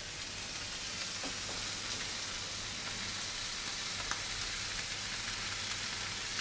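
Pork medallions topped with pineapple and raclette cheese sizzling in a pan under a hot oven grill: a steady frying hiss with a few faint crackles.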